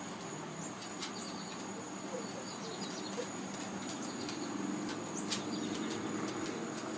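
Outdoor ambience: a steady high insect trill with scattered bird chirps and a few faint clicks over a low hiss.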